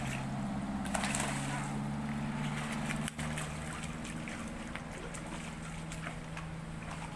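A hooked pacu (bawal) splashing and thrashing at the pond surface as it is played on a rod, with louder splashes about a second in and again around three seconds. A steady low motor hum runs underneath.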